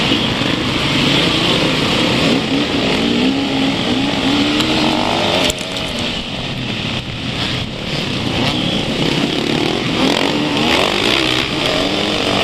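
Several enduro dirt-bike engines revving and accelerating together in a pack, heard from on board one of the bikes. Their pitch keeps rising and falling, and the overall level drops abruptly about five and a half seconds in.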